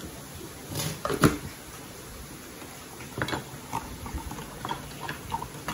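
A sharp knock a little over a second in, then a string of small irregular clicks and scrapes of a metal spoon working inside an opened tin can.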